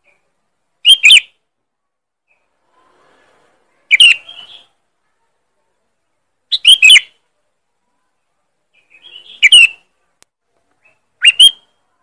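Sooty-headed bulbul (kutilang) giving loud, sharp calls used as a lure call: five short calls a few seconds apart, each a quick doubled note.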